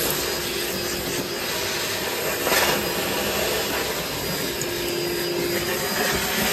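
Milwaukee cordless vacuum cleaner running with a steady hum, its hose nozzle rubbing and scraping over the dirty hull surface as it sucks up debris.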